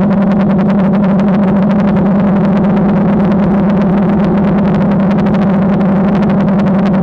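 DJI Phantom quadcopter's motors and propellers humming steadily in flight, a constant buzzing tone with a fast flutter.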